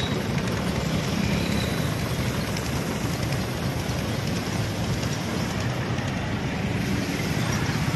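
Mahindra tractor's diesel engine running steadily as it works a road-sweeping brush machine across the road, a continuous even mechanical noise.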